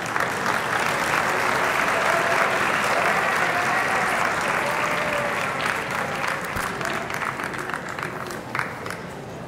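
Arena audience applauding, starting at once, loudest for the first five seconds or so, then dying down over the last few seconds.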